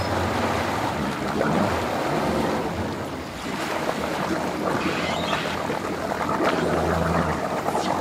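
A 200-horsepower outboard motor running under throttle to power a bass boat onto its trailer, its propeller churning and spraying water behind the boat. The engine hum dips in the middle and comes back strongly about two-thirds of the way through.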